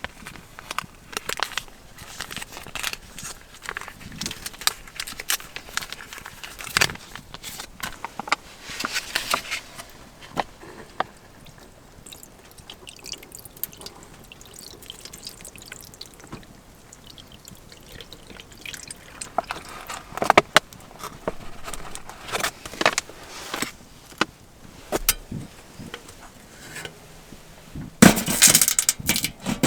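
Scattered light clicks and knocks of camp cookware and gear being handled, with short rustling bursts; the busiest, loudest handling comes near the end.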